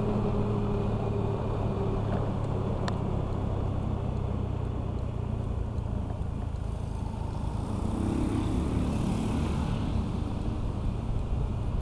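Honda Vario 125 scooter's small single-cylinder engine running steadily while riding, with road noise and a single click about three seconds in.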